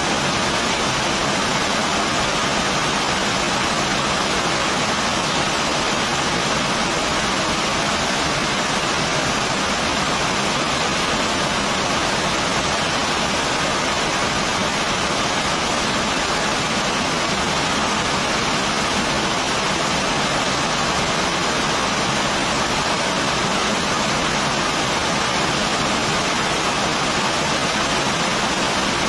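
Heavy rain falling in a steady, unbroken hiss.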